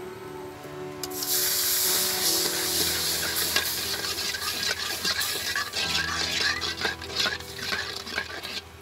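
Hot liquid sizzling in a metal wok. It starts suddenly about a second in and keeps going, while a metal spatula scrapes and stirs through it. The hiss cuts off just before the end.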